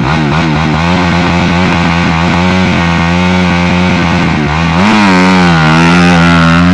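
Motocross bike engines running loud at the starting gate, revs held and blipped so the pitch wavers up and down, climbing about five seconds in.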